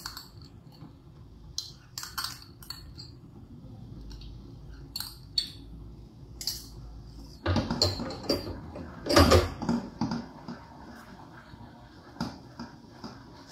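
A metal spoon clinking against a glass bowl as mayonnaise is scraped out into a steel saucepan, then a spatula scraping and knocking against the pan while stirring thick white sauce. Scattered light clinks, with louder clatters about eight and nine seconds in.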